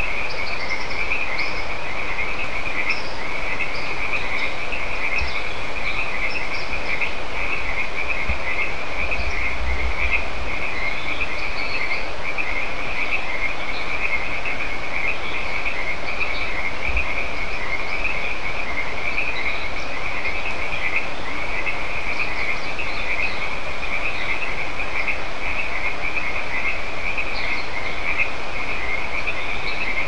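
A chorus of frogs calling continuously: many overlapping calls merge into one dense, unbroken trilling, with scattered higher calls standing out now and then.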